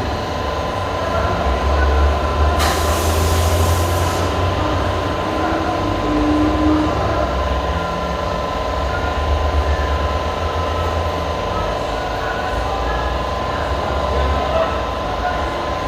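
Car accessories shop ambience: a steady low rumble and a constant hum, with a short burst of hiss about three seconds in.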